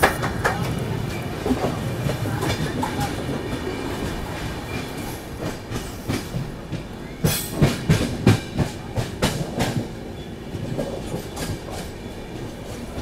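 Passenger train wheels clattering over rail joints and points, as another train runs past on the next track. A run of loud clicks comes about seven to ten seconds in.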